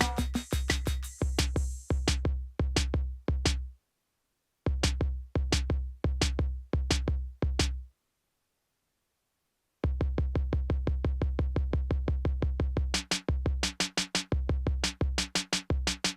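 Eurorack modular drum pattern: deep, ringing kick-like hits with clicky attacks, playing in broken groups that stop twice for a second or two. A quick stuttering roll comes about two-thirds of the way through.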